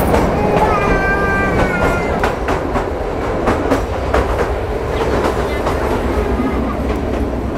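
Kalka–Shimla narrow-gauge toy train coach running through a long tunnel: a steady rumble with the clickety-clack of the wheels over rail joints. A brief high-pitched wheel squeal sounds about a second in.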